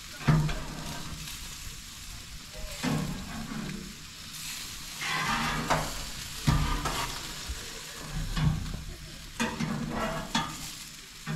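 Burger, onion slices and squash sizzling on a gas grill's grates, while metal tongs clack and scrape against the grates several times as the food is turned.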